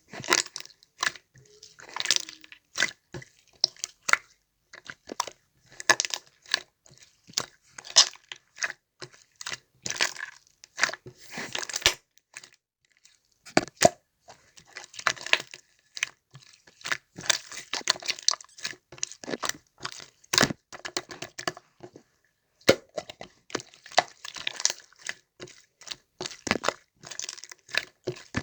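Hands squishing, stretching and poking a chocolate slime, giving runs of sticky crackling and popping clicks, with short pauses about twelve seconds in and again a little after twenty seconds.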